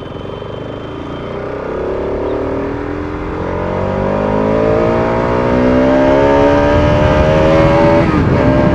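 Bajaj Pulsar RS200's single-cylinder engine accelerating under the rider, its pitch rising steadily and getting louder for several seconds, then dipping briefly near the end as at an upshift.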